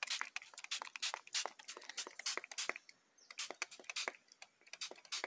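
Faint, irregular clicking and crackling as rust remover is worked over a steel flywheel.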